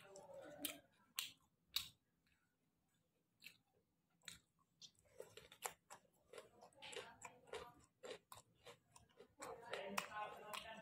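A person chewing a mouthful of roasted pork and vegetables: irregular wet smacks and clicks, sparse for a couple of seconds and then more frequent from about halfway.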